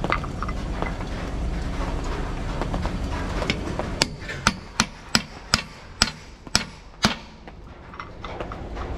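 Hammer blows during work on an excavator hydraulic cylinder: a steady low rumble, then, from about halfway in, a run of about nine sharp strikes at roughly two a second.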